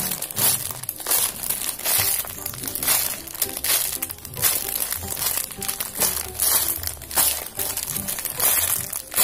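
Clear plastic bag crinkling again and again as the squishy foam toy sealed inside it is squeezed and turned in the hands, over background music.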